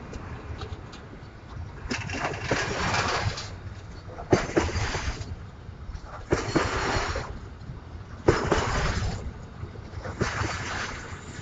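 Locomotives pulling a train away, making a sharp click followed by a rush of noise about every two seconds, five times in a row.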